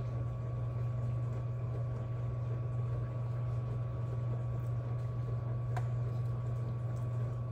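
A steady low hum, with a single faint click about six seconds in.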